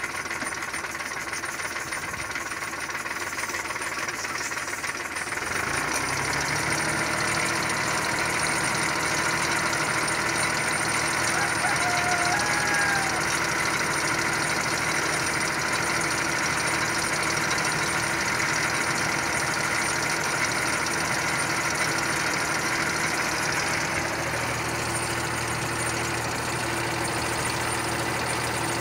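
Tractor engine running steadily to drive its air compressor, with air hissing through the hose into a balloon as it is inflated. The engine note settles about five seconds in, and a deeper hum joins near the end.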